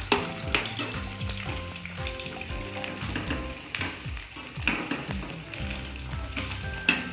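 Frozen shoestring fries frying in hot oil in a nonstick frying pan, with a steady sizzle and crackle. A metal slotted spatula stirs them, its sharp clicks against the pan coming a few times.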